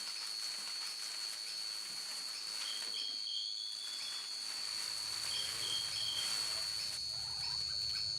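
Night insect chorus: a steady high-pitched trill, with a second caller giving short runs of three or four chirps every few seconds.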